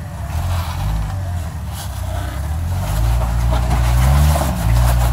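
Off-road vehicle's engine revving under load while crawling up a rocky waterfall obstacle, pitch rising and falling, and louder from about three seconds in.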